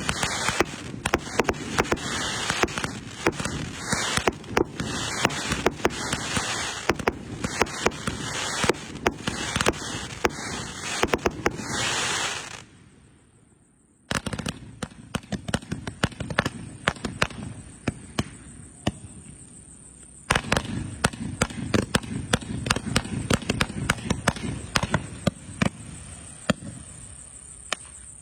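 A 666-shot 2-inch fireworks cake firing: a rapid, continuous run of shots and bursts with crackle. About halfway through the firing stops for a second or so, then resumes, softer at first and then louder again.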